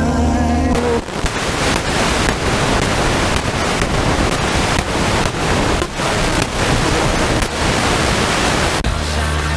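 FM static hiss from a portable radio's speaker as it is tuned between stations, with short breaks in the hiss as the dial steps. Music from one station cuts off about a second in, and another station's music comes in near the end.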